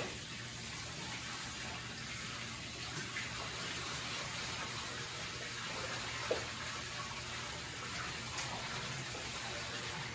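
Water pouring steadily from a plastic bucket into a glass aquarium tank.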